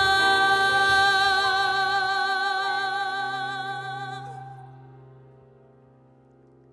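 A singer holds one long note with a slight vibrato over a soft, steady low accompaniment, fading out about four seconds in.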